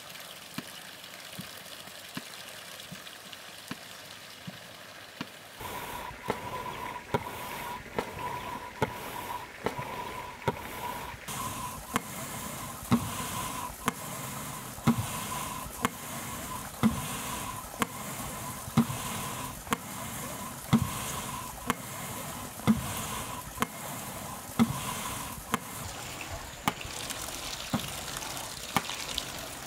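Water-powered hammer pounding iron ore: a heavy thud about every two seconds with many lighter knocks between, over running water and a steady high tone. For the first few seconds only trickling water is heard; the pounding starts suddenly.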